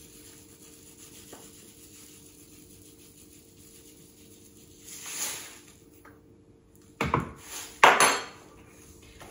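Metal spoon knocking on a hard surface twice, about a second apart near the end, the second knock the loudest, as it is put down on the counter. A brief rustle of the plastic bag of brown sugar comes a couple of seconds before.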